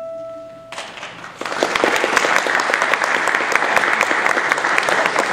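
The last held note of a Baldwin grand piano dies away, and under a second in an audience starts applauding, quickly building to steady clapping.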